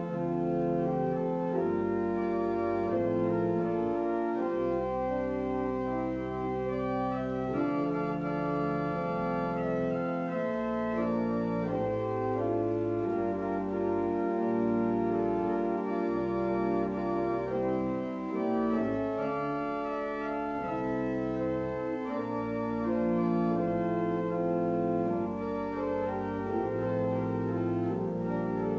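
Church organ playing a hymn-based piece in sustained chords, with low bass notes underneath.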